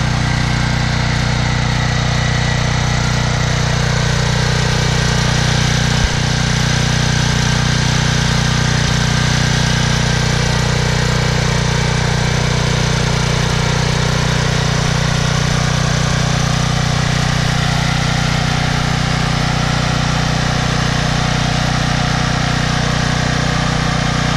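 Troy-Bilt 8000-watt generator's 15 HP Briggs & Stratton engine running steadily at constant speed, with a single brief click about six seconds in.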